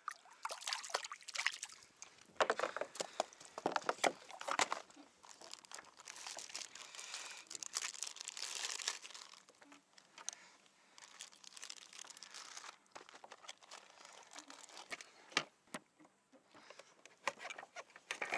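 Crinkly rustling and scattered sharp clicks of hands handling fishing line and a metal jig on a plastic kayak deck. The noise is busiest in the first half and thins out after about thirteen seconds.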